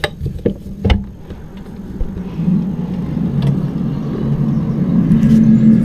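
A few clicks and knocks as a window is opened, then from about two seconds in a low, steady droning hum from outside that grows louder: the unexplained 'strange noise' the person says they have been hearing.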